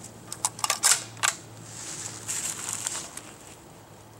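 Bolt of a Westernfield Model 175 12-gauge bolt-action shotgun being worked by hand: a quick series of metallic clicks and clacks in the first second or so, the loudest about a second in. A short rustle follows about two seconds later.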